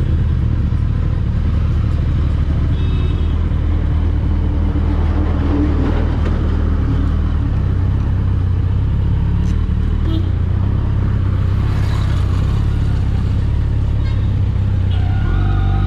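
Motorcycle engines idling in traffic: the Suzuki Hayabusa's inline-four under the rider, with a Royal Enfield parallel-twin idling alongside, a steady low hum.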